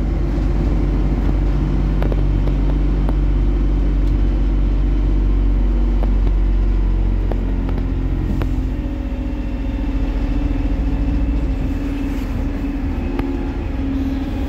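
Inside a MAZ-203 compressed-natural-gas city bus under way: steady engine and running noise with a low hum. The engine note changes and the noise drops slightly about eight seconds in, with a few light rattles.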